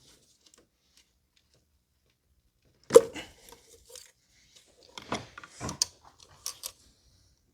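Ignition coils and their plastic electrical connectors being handled and pulled off: one sharp knock about three seconds in, then a cluster of short clicks and rattles a couple of seconds later.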